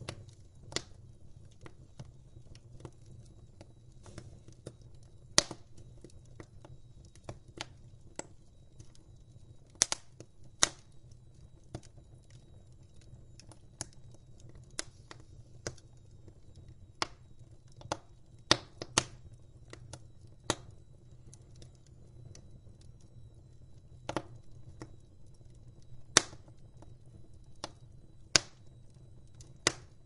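Burning wood crackling: sharp, irregular pops and snaps, a handful much louder than the rest, over a faint low rumble.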